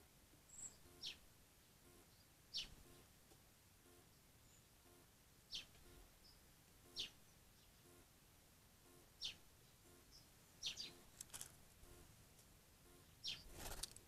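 Small songbird calls: short, sharp, high chips that drop in pitch, coming every second or two over faint hiss. Near the end a quick flurry of wingbeats and water sounds as birds move at the bath.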